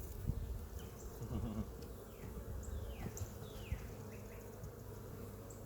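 Honeybees buzzing around an open hive, a steady hum. A few short falling chirps come through faintly in the middle.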